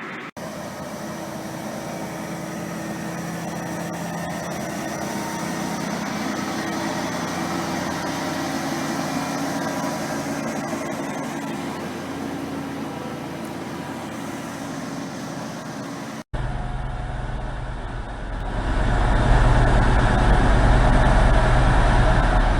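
Heavy diesel vehicle engine running steadily, laid on as a sound effect. A sharp cut about 16 seconds in switches to a deeper, louder engine sound that swells a couple of seconds later.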